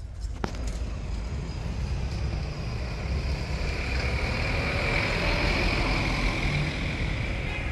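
A motor vehicle going by: a steady low rumble with a rising and falling rush that peaks about five seconds in. There is a single sharp click about half a second in.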